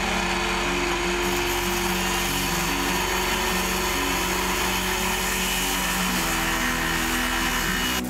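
Power saw running steadily as it cuts lumber boards to size; the noise starts suddenly and cuts off near the end.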